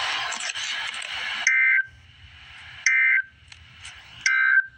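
A hiss of just under two seconds, then three short, loud Emergency Alert System end-of-message data bursts, about a second and a half apart: the two-tone digital screech of the SAME code that closes the warning.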